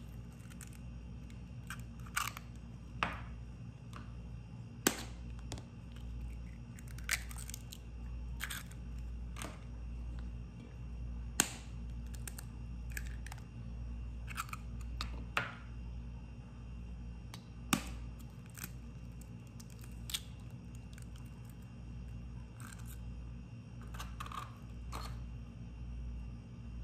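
Eggs tapped and cracked open one after another over a plastic tub of mashed banana, then a metal fork clicking against the tub as the eggs are mixed in: a string of sharp separate taps over a steady low hum.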